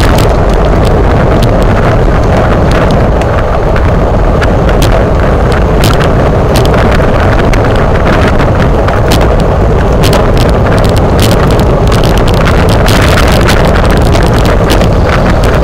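Heavy wind buffeting on a camera microphone moving with a bunch of racing bicycles at speed. Frequent sharp clicks and rattles run all through it.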